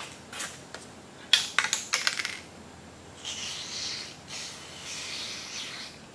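Small metal parts clicking and clinking against each other, then two bursts of hiss from an aerosol can of lithium grease being sprayed into the impact driver's anvil assembly.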